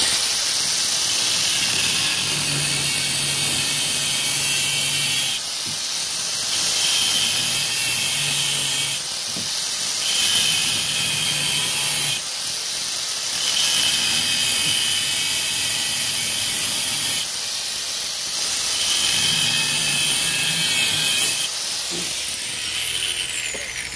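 Corded angle grinder with a cut-off disc cutting through the metal casing of a cylindrical LiFePO4 cell near its positive terminal. The motor's high whine sags and recovers several times as the disc bites in. Near the end it is switched off and the whine falls as the disc spins down.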